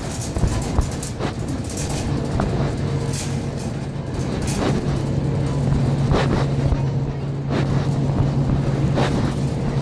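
Phone microphone rubbing and knocking against the inside of a pocket while walking: irregular scrapes and thumps over a steady low hum, which cuts off suddenly at the end.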